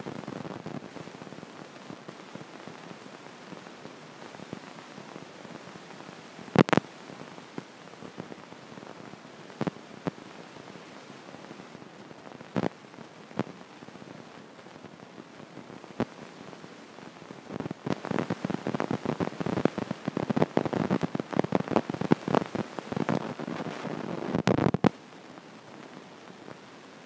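Stylus tapping and scratching on an iPad's glass screen while writing: a few single sharp taps spaced several seconds apart, then a dense run of rapid taps and scratches from about two-thirds of the way in until near the end, over a faint steady hiss.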